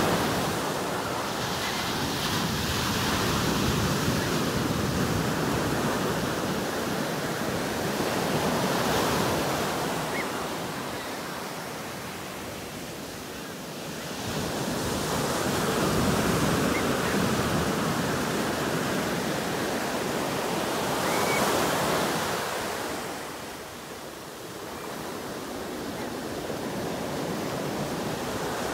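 Ocean surf breaking and washing up a sandy shore. The rush of water swells and eases in slow surges as each wave comes in and draws back.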